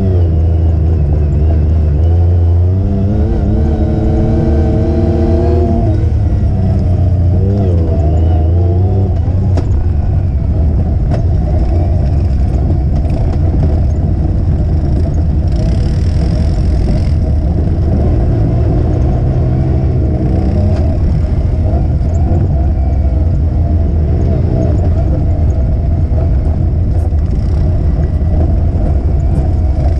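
Off-road vehicle engine running on board under throttle, its pitch rising and falling as the revs change, with a brief rush of noise about halfway through.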